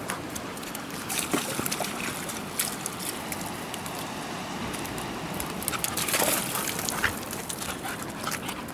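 Seawater sloshing and trickling among shore rocks and rock pools, with scattered small clicks and splashes, a cluster of them about a second in and another near the end.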